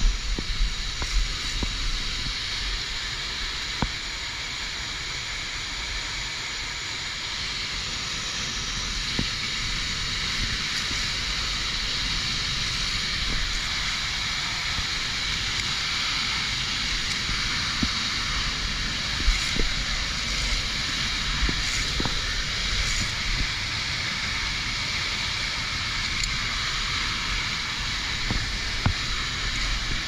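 Steady rushing of a waterfall close by, with a low rumble underneath and a few short clicks and knocks scattered through.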